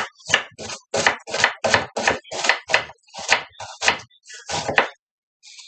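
Nakiri knife chopping a red onion on a wooden cutting board: a fast, even run of sharp knocks, about three to four a second, that stops about a second before the end.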